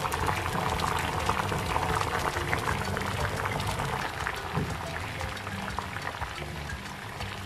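A pot of water at a rolling boil, bubbling and crackling steadily, easing a little in the second half.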